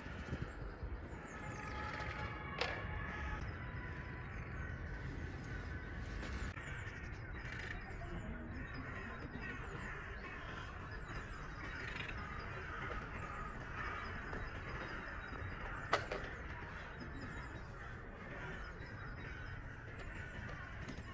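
Outdoor background with a steady low rumble and scattered bird calls, the clearest about two to three seconds in, and a short sharp click near the start and another about sixteen seconds in.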